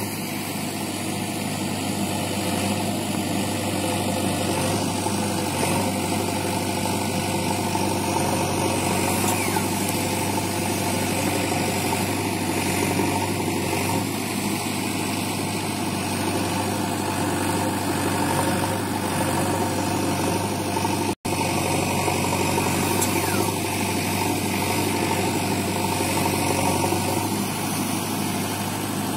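Diesel engine of a JCB 3DX Xtra backhoe loader running steadily while the backhoe arm digs and swings, with one momentary break in the sound about two-thirds of the way through.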